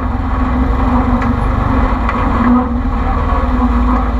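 Polaris RZR side-by-side's engine running at a steady speed, heard from inside the cab as a steady drone over a low rumble, with a few faint knocks.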